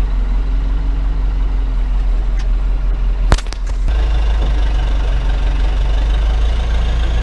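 Diesel engine of a JCB 214 backhoe loader running steadily. A single sharp crack sounds about a third of the way in, and after it the engine runs louder and fuller, as if working harder.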